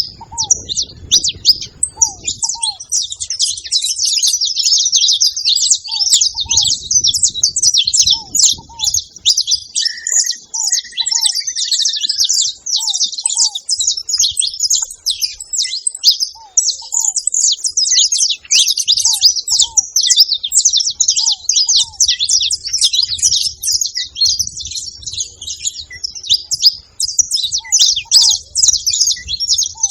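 A flock of saffron finches chattering together, a dense, unbroken mass of overlapping high chirps. A short lower note recurs every second or so underneath, and a separate longer call comes through briefly about ten seconds in.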